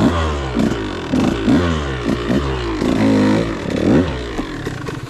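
2013 KTM 150XC single-cylinder two-stroke dirt bike engine being ridden, revved up and down repeatedly in short blips.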